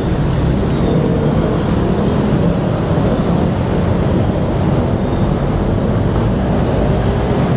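Steady road traffic noise from motorcycles and cars around a busy intersection, heard from a moving bicycle.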